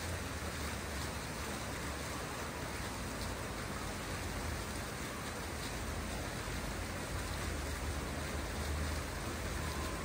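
Water fountain splashing into its pool: a steady, even rush of falling water with a low rumble underneath.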